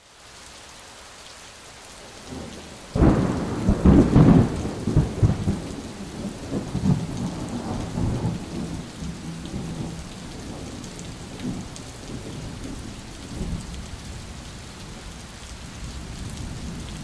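Steady rain with a sudden thunderclap about three seconds in, rumbling on and fading over several seconds while the rain keeps falling.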